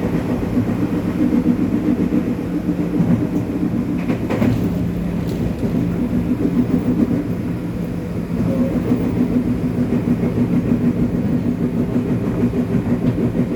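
JR 205 series electric train running at speed, heard inside motor car MoHa 205-218: a steady traction-motor hum over wheel-on-rail rumble, with a few clicks about four seconds in. About eight seconds in the hum briefly drops away and the level dips, then both return.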